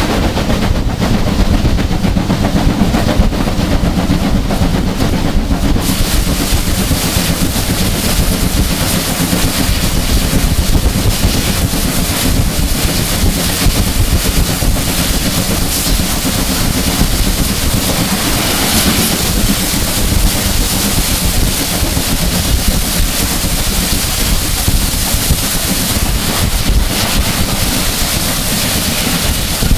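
A BR Standard Class 5 4-6-0 steam locomotive, 73096, and its train running at speed, heard from an open carriage window as a loud, continuous rush of exhaust and rail noise with heavy wind buffeting on the microphone.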